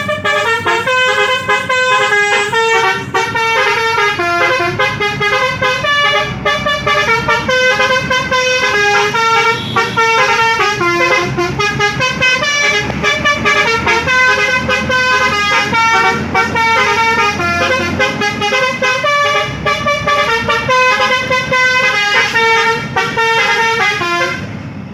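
Telolet multi-tone bus air horn (basuri horn) playing a quick tune of short stepped notes with no pause, dropping away just before the end.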